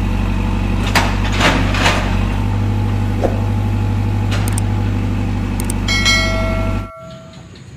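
Engine idling sound accompanying a toy wheel loader: a steady low rumble with a few clicks about a second in. A short horn-like tone sounds near the end, then the engine sound cuts off suddenly.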